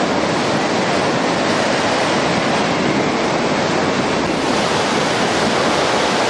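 A river in flood rushing past: muddy floodwater churning and surging, a loud, steady noise of water.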